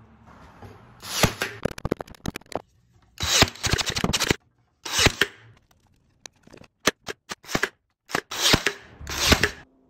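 Cordless brad nailer shooting brads through thin wood slats into a plywood ring, a string of sharp snaps in short clusters, mixed with wooden pieces knocking and clattering as they are handled.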